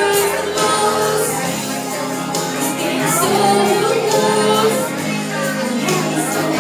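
A young girl singing karaoke into a handheld microphone, her amplified voice over a recorded backing track, with the echo of a large room.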